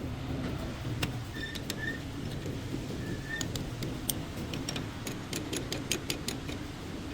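A series of sharp light clicks and ticks, scattered at first and coming faster in the second half, over a steady low hum.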